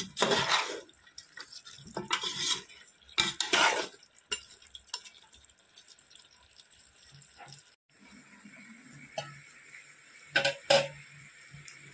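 Metal ladle scraping and stirring thick chicken curry in an aluminium pot, with three loud scrapes in the first four seconds and lighter ones after. About eight seconds in, this gives way to a steady hiss of water boiling in a steel pot, with two sharp metal clinks near the end.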